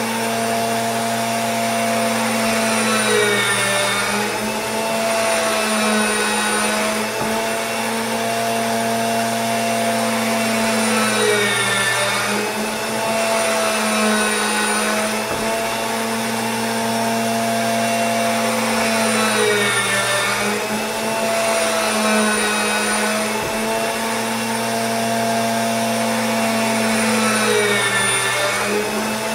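Electric gear motor turning a hot-water-filled PVC wash tube, running with a steady hum and a higher whine that dips in pitch and recovers about every eight seconds.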